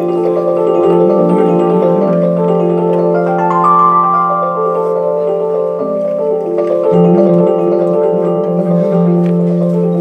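Live small jazz band playing: layered, sustained keyboard notes over a long-held low note that breaks briefly about a second in and again near seven seconds in, with little percussion.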